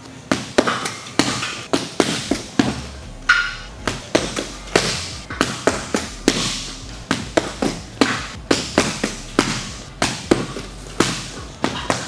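Gloved boxing punches landing in quick combinations: sharp smacks about three a second, with short breaks between flurries.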